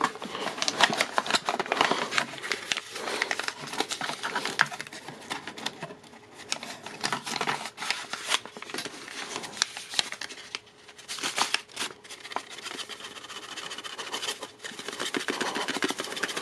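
Packaging and small accessories being handled while unboxing: crinkling and rustling with many small clicks and taps. It is busiest at the start, thins out in the middle, then picks up again near the end.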